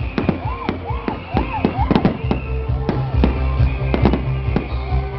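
Fireworks going off in a dense run of sharp cracks and bangs, with a run of short rising-and-falling whistling tones in the first two seconds. Music with a heavy low bass sounds underneath from about two seconds in.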